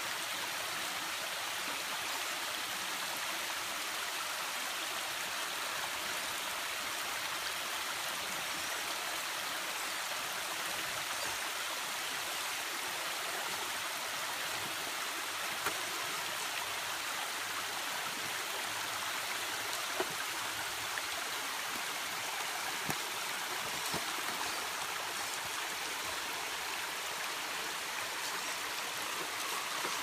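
Steady rush of a small waterfall and stream running over rocks. A few brief clicks stand out about halfway through and later.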